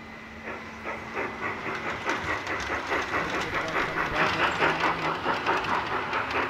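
Model steam train running past close by, a rapid rhythmic clicking of about four beats a second that grows louder as it nears.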